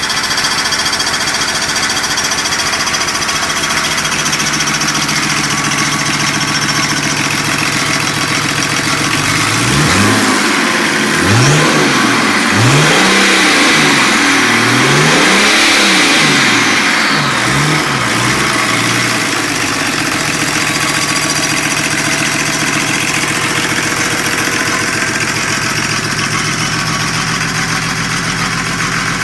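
Volvo D24T 2.4-litre inline-six turbodiesel, running on a test stand out of the car, idling steadily. About a third of the way in it is revved up and down several times in quick succession for roughly ten seconds, then settles back to a steady idle. The engine runs well.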